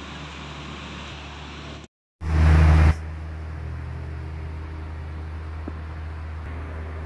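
Steady low hum with hiss of background noise. It cuts out completely for a moment about two seconds in, then a loud, brief burst of noise follows before the hum carries on.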